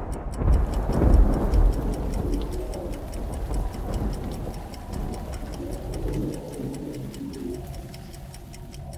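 Clock ticking at an even, steady pace over a deep rumble that dies away about two-thirds of the way through.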